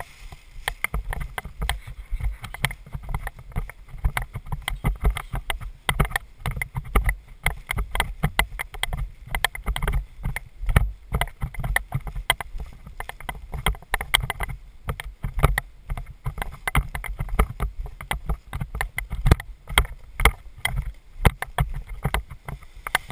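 Paraglider wing's nylon fabric rustling and crinkling against a helmet-mounted camera as the bundled wing is carried on foot: a dense, irregular run of crackles over low thumps.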